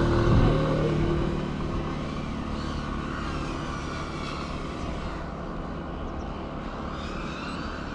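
A motor scooter's engine going away down the road, fading over the first second or two. After that comes a steady hiss with faint rising and falling whines from an FPV quadcopter's motors at a distance.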